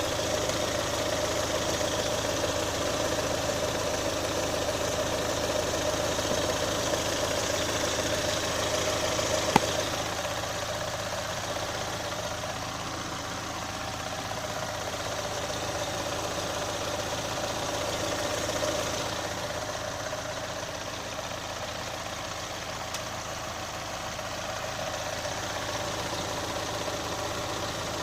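Chevrolet Onix 1.0 engine idling steadily with an abnormal noise that the owner takes for an engine fault. There is a single sharp click about ten seconds in.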